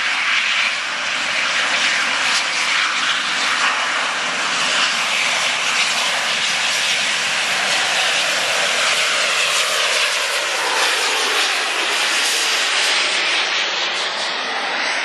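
Bulleid rebuilt Pacific steam locomotive 34028 'Eddystone' working a passenger train past at close range, its exhaust and running gear loud and continuous. About eleven seconds in the engine has passed and the coaches roll by.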